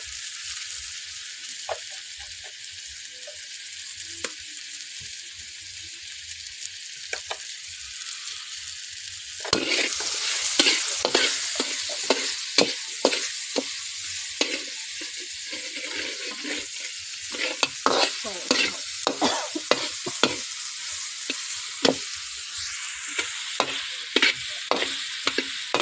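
Food frying and sizzling in a hot pan. About ten seconds in the sizzle grows louder and a spatula starts scraping and knocking against the pan as the food is stirred.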